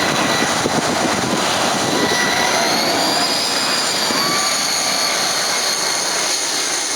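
Airplane on final approach passing low overhead: a loud, steady engine roar with high whining tones that rise and then fall in pitch as it goes over.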